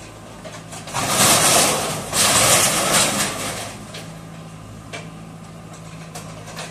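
JCB backhoe loader's diesel engine running while its bucket works demolition rubble. About a second in comes a loud two-second rush of crashing and scraping from concrete and roofing sheets, then the engine runs on steadily with a few light knocks.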